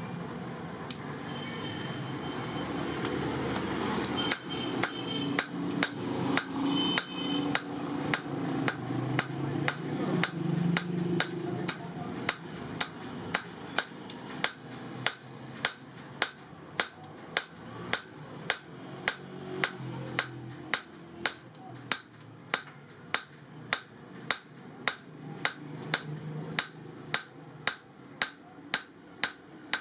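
Hammer blows on leaf-spring steel being forged into a knife, in a steady rhythm of about two blows a second, each with a short metallic ring. The blows start about four seconds in, over a low steady rumble.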